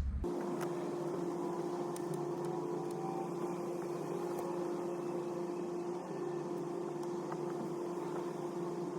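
A steady mechanical hum, like a small fan or blower motor running, with one constant tone over a faint whir. It cuts in and cuts off abruptly.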